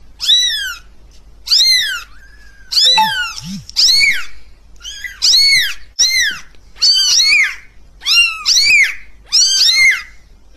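Young grey kitten meowing loudly and over and over: about a dozen high-pitched mews, each sliding down in pitch at its end.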